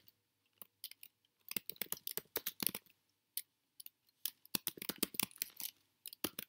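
Computer keyboard typing: keys clicking in quick, irregular runs, with a short pause about halfway through.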